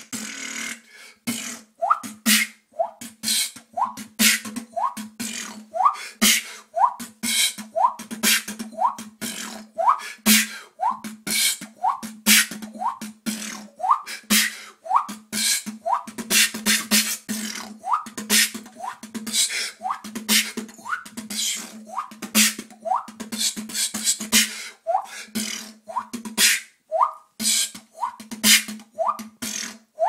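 Beatboxing: a steady rhythm of mouth clicks and hissing snare-like hits, woven with many short rising 'water drop' pops made with the mouth, over a low hum.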